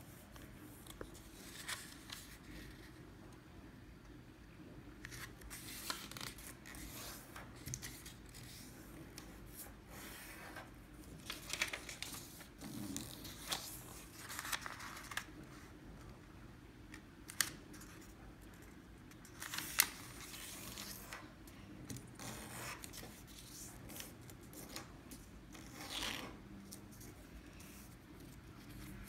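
Sheets of origami paper being handled and folded by hand: irregular rustles, sliding swishes and sharp creasing strokes of paper against a slate countertop.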